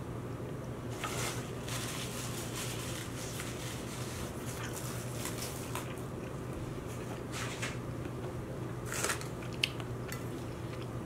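Close-miked chewing and mouth sounds of someone eating a jibarito (fried-plantain sandwich), in short scattered bursts over a steady low hum. Near the end a plastic fork clicks and scrapes against the plate a couple of times.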